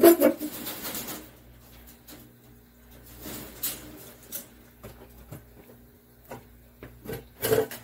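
Wire-mesh rabbit cage rattling and clanking as its door is opened and a rabbit is lifted out, with a sharp clank at the very start, scattered rattles and rustling in the middle, and a quick cluster of knocks near the end.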